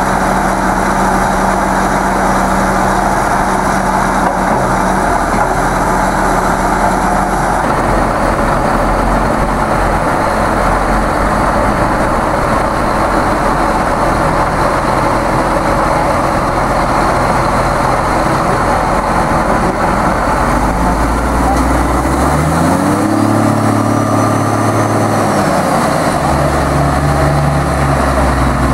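Case IH Quadtrac tracked tractors' diesel engines running steadily. A little past two-thirds of the way through, one engine revs up, holds, and drops back down.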